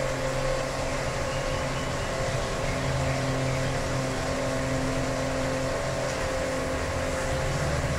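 Steady mechanical hum with several held tones over an even hiss, unchanging throughout.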